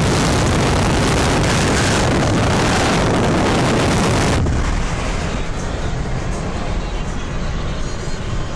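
Loud steady rush of wind from a moving car, which cuts off suddenly about four and a half seconds in. A lower rumble of tyres and engine inside the moving car follows.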